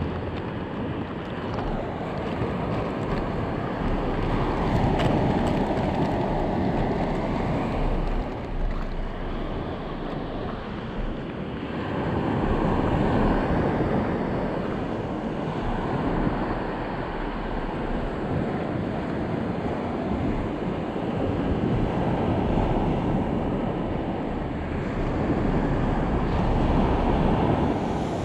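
Surf breaking and washing up a beach, swelling louder and fading back every several seconds, with wind buffeting the microphone.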